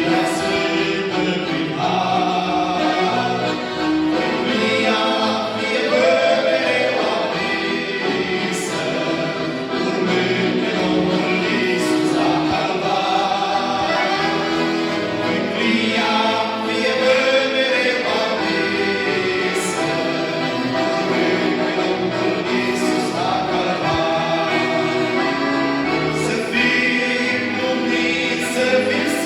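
A group of young singers, a choir, singing a Christian praise song in harmony.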